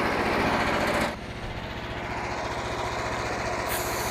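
Small engine of a portable bandsaw sawmill running steadily. A louder rushing noise on top of it stops abruptly about a second in, and a brief high hiss comes near the end.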